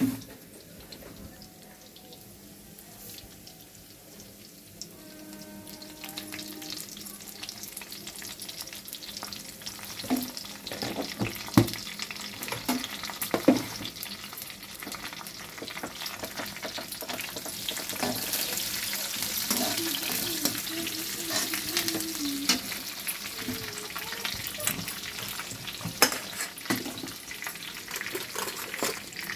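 Food sizzling in hot oil in a pan while being stirred, with a spoon or spatula knocking against the pan now and then. The sizzle builds over the first several seconds and is loudest around the middle.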